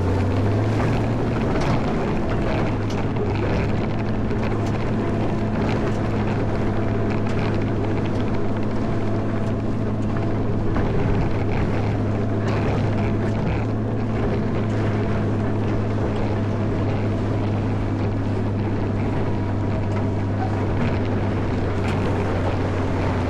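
Caterpillar 140M motor grader's diesel engine running steadily, a constant low hum over a rushing noise with scattered faint clicks and knocks.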